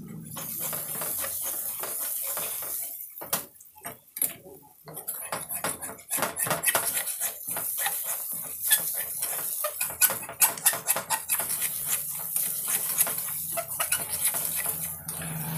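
Perforated steel ladle scraping and clinking against a metal kadai as a masala paste is stirred and fried in oil, with a hiss of sizzling under it. The stirring eases off briefly about three seconds in, then picks up again with quick repeated scrapes and clinks. The masala is being roasted until the oil separates.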